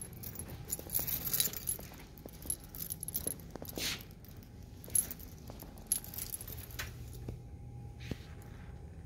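Keys jingling in irregular flurries as someone walks, with small sharp clicks and soft footsteps over a faint steady hum.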